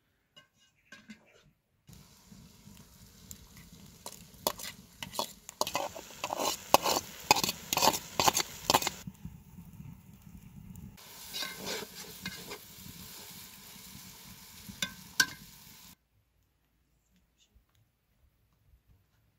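Split firewood burning in a clay stove, crackling with many sharp pops over a steady hiss. It stops about sixteen seconds in, after which it is near silent.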